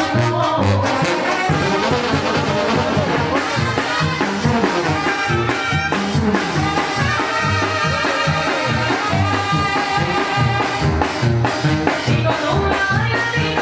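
A live banda playing an instrumental passage with no singing: trumpets, trombones and clarinets over a steady tuba bass line and drums.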